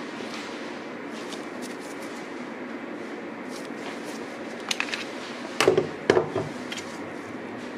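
Handling noise from a pistol and its hard case: a steady room hiss with faint scattered clicks, then a few sharp clicks and two short clusters of louder hard clacks a little past halfway through.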